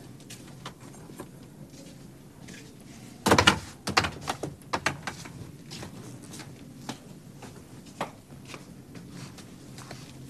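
A thump about three seconds in, then scattered light knocks and clicks of cardboard boxes being handled and set down on a table.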